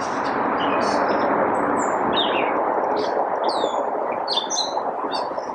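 Gray catbird singing a rambling string of short, varied squeaks, whistles and chirps, each note different from the last, over a louder steady rushing background noise.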